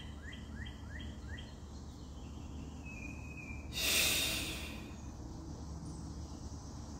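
A single long breath blown out through pursed lips, a breathy whoosh lasting about a second, about four seconds in. Before it, in the first second and a half, a bird repeats a short rising chirp about three times a second.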